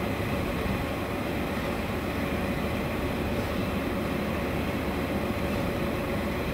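Floating jet aerator running steadily: the motor on the pontoon hums with a faint steady tone over the rush of water churned into foam by its jet.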